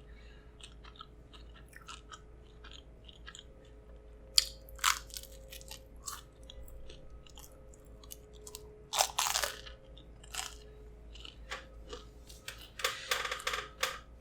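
Close-miked eating: a mouth chewing and biting takeout pizza food, with wet smacks and crunchy bites. Louder bites come a few seconds in, near the middle and near the end.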